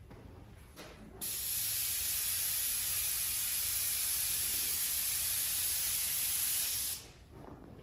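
Airbrush spraying paint: a steady high hiss of air that starts about a second in and cuts off sharply near the end.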